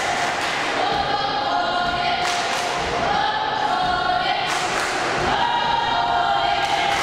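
A group of girls' high voices chanting in unison, a short two-note cheer repeated over and over, echoing in a large sports hall, with a few dull thuds underneath.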